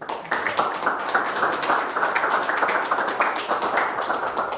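Audience applauding: many hands clapping, which dies away near the end.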